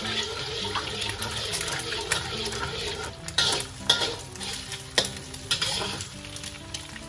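An egg sizzling in hot oil in a wok as a spatula scrapes and stirs it into a soft scramble. In the second half the spatula strikes the wok several times with sharp clacks, the loudest sounds here, and the sizzle eases near the end.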